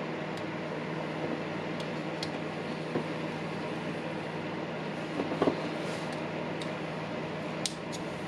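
Steady mechanical hum, like a fan or air conditioner, with a few light clicks and a short cluster of small knocks about five seconds in, as of parts being handled.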